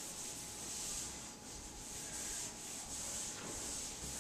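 Whiteboard eraser wiping marker writing off a whiteboard: a soft rubbing hiss that swells and fades with repeated back-and-forth strokes.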